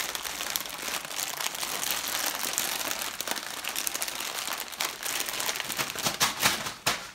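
A bundle of plastic chip bags crinkling and crackling as they are squeezed and rubbed together, with a few sharper, louder crackles near the end.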